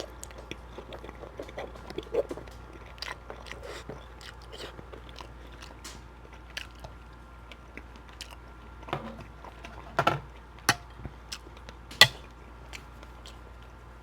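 Close-miked chewing of shrimp alfredo pasta with thick noodles: wet mouth clicks and smacks, with a few sharper clicks about 10 and 12 seconds in.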